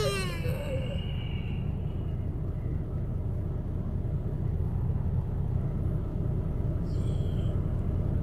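A steady low rumble, with a short faint higher sound about seven seconds in.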